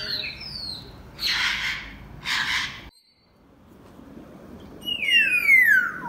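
Parrots calling: two loud, harsh squawks about a second apart, which fit the green-winged macaw, then after a short break a long whistle falling in pitch, which fits an African grey parrot.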